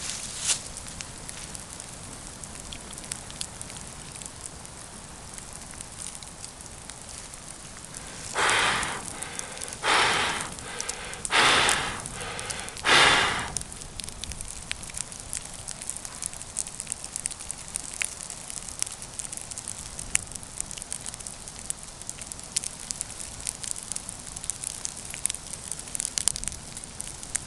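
Campfire burning with steady fine crackling and hiss. About eight seconds in come four short, loud rushing noises, each under a second long and about a second and a half apart.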